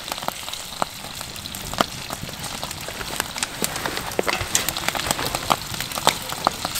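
Trout frying in a pan over a wood fire: a steady sizzle with frequent sharp pops and crackles.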